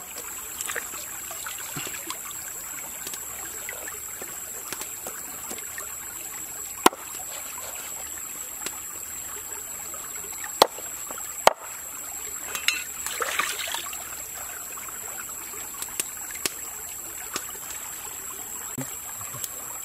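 Shallow stream trickling steadily over rocks, with a few sharp knocks of a cleaver chopping fish on a wooden board. Three loud knocks stand out near the middle.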